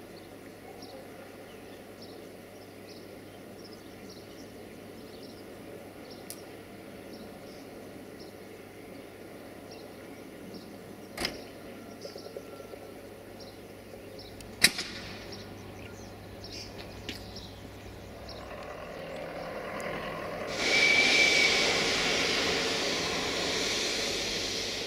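Railway noise: a train's rushing sound builds late on and jumps much louder near the end, with a brief high squeal. Before it there is a quiet background of faint, regular high chirps and two sharp metallic clicks.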